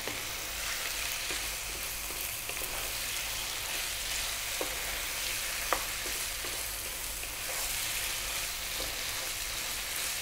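Beef and chopped fresh tomatoes sizzling steadily in a nonstick frying pan while a wooden spoon stirs them, with a few light taps and scrapes of the spoon against the pan, one sharper tap just before the middle.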